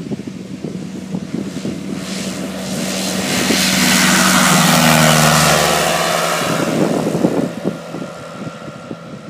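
Pipistrel Sinus motor glider's engine and propeller at full takeoff power on a short takeoff run, the drone swelling as the aircraft lifts off and passes close by, dropping in pitch as it goes past, then fading as it climbs away. Wind gusts buffet the microphone throughout.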